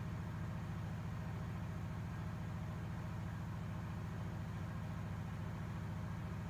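Steady low mechanical hum, unchanging throughout.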